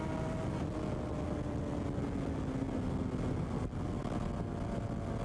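Suzuki GSX-R750 inline-four engine running at speed, heard onboard under heavy wind rush on the microphone. Its note slowly drops in pitch as the rider eases off.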